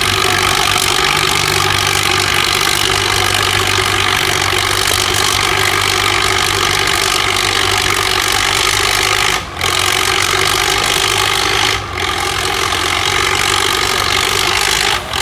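Vintage farm tractor engine running hard at a steady pitch while pulling a weight-transfer sled, with three brief dips in loudness.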